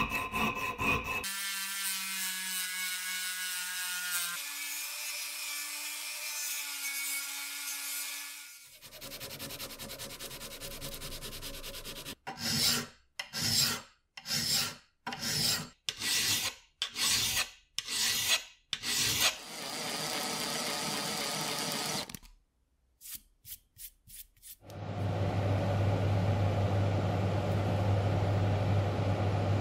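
Hand file scraping on cast-metal slicer parts held in a bench vise, first in continuous filing, then in a run of about eleven even strokes, roughly one and a half a second. Near the end powder-coating booth equipment starts and runs with a steady hum.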